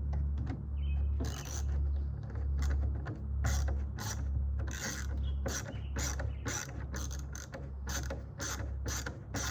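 Hand tool working on a sliding-door lock: short, sharp scraping or clicking strokes repeated about twice a second, starting about a second in, over a steady low rumble.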